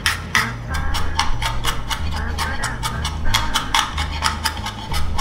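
Cleaver chopping peeled garlic cloves on a wooden cutting board: a few separate knocks at first, then rapid even chopping at about five strokes a second as the garlic is minced, over background music.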